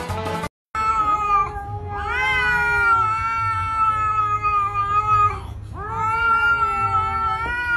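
Kitten yowling at another cat in long, drawn-out cries. There is a short cry first, then two long ones, each held steady for about three seconds. A brief snatch of music ends just before the cries begin.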